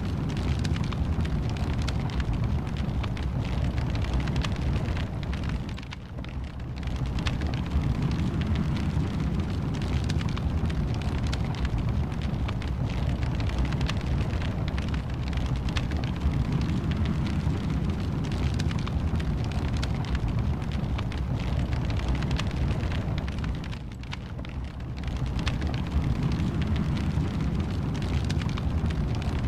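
Wood fire burning in a fireplace: a steady low rumble with dense, constant small crackles. The sound dips briefly twice, about six seconds in and again near twenty-four seconds.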